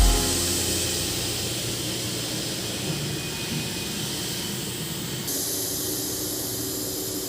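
Steady hiss of escaping compressed air, most likely from the pneumatic strapping tool; the highest part of the hiss drops away about five seconds in.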